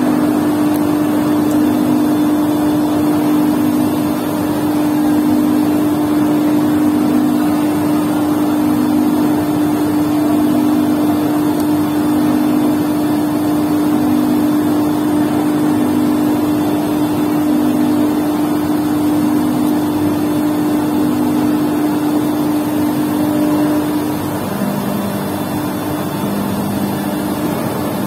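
Markem-Imaje 9040 continuous inkjet printer running, a steady mechanical hum from its ink system with a softer pulsing tone under it; about 24 seconds in the hum shifts to a lower pitch.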